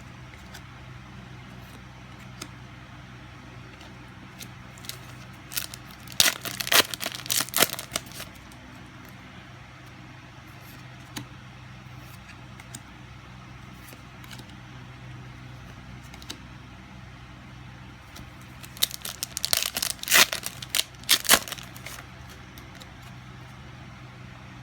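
Trading-card booster pack wrappers being torn open and crinkled, in two bursts of sharp crackling about six and nineteen seconds in, over a steady low hum.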